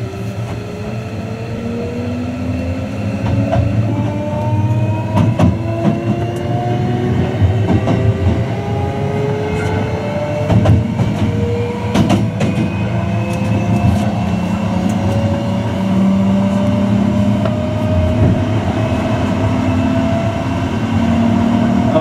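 Hankyu new 1000 series EMU accelerating, heard inside the passenger car: the Hitachi permanent-magnet synchronous traction motors and their inverter give several whining tones that rise slowly and steadily in pitch over the running rumble, getting louder as speed builds. A few sharp clicks of the wheels over rail joints come through, around a third and halfway in.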